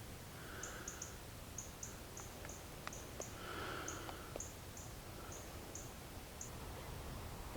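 Faint outdoor ambience: a run of short, high-pitched chirps repeating two to three times a second, which stops about six and a half seconds in, with two softer, lower calls about half a second and three and a half seconds in, and a few light clicks.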